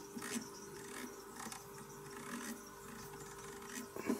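Freshly repaired mechanical rotary encoder behind an amplifier's volume knob, clicking faintly through its detents as the knob is turned quickly back and forth. Now it steps without skipping.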